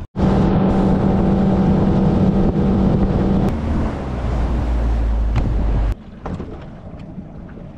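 Boat outboard motor running underway, with wind and water rushing past. The note drops lower about halfway through, and the engine sound cuts off abruptly about six seconds in, leaving a softer wind and water hiss.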